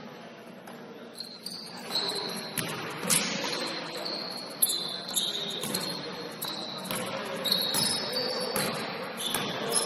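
Basketball shoes squeaking on a gym court: many short, high squeals from about a second in, with a few sharp thuds of the ball and footfalls among them.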